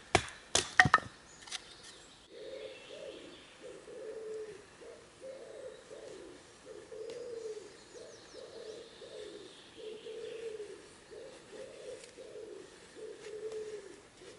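A wooden baton knocking on the spine of a knife to split a stick, about four sharp knocks within the first second. Then a pigeon cooing over and over in soft low phrases.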